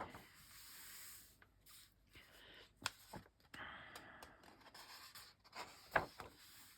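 Sheets of paper being handled and turned over: faint rustling and sliding of paper, with a couple of light taps.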